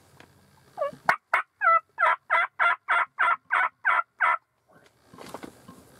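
Wild turkey yelping: a run of about a dozen evenly spaced, loud yelps, about three a second, starting about a second in and stopping after about three and a half seconds.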